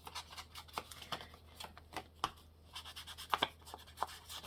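Paper and card being handled on a craft table: irregular small taps, clicks and rustles, a few sharper ones about a second apart, over a faint steady low hum.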